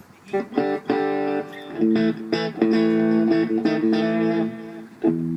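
Guitar being played: a string of plucked notes and ringing, held chords that starts about a third of a second in, as a player tries out his instrument while setting up.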